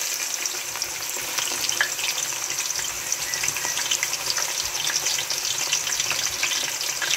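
Chopped onions frying in hot vegetable oil in a pot: a steady sizzle full of tiny crackles and pops.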